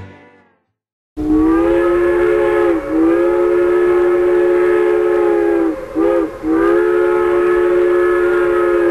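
Train whistle sounding a chord of several notes: a long blast starting about a second in, a short toot, then another long blast that cuts off abruptly.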